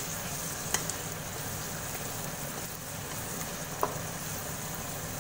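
Chopped onions, curry leaves and whole dried red chillies frying in hot oil with ginger-garlic paste, sizzling steadily as a spatula stirs them around the pan. Two sharp clicks of the spatula against the pan, one just under a second in and one near four seconds.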